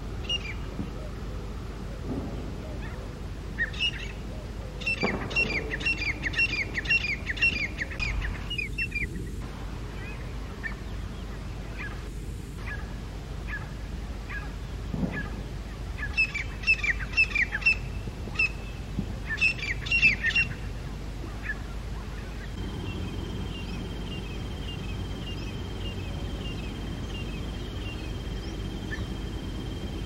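Grey francolins calling: loud runs of shrill repeated notes, about three a second, in three bursts of a few seconds each, the challenge calls of rival groups over a territory. In the last third a steady high trill carries on alone.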